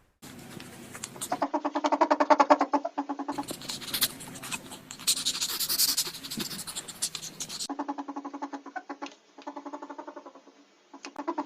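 An animal's rapid pulsed chattering calls, many pulses a second, in several stretches that start and stop abruptly.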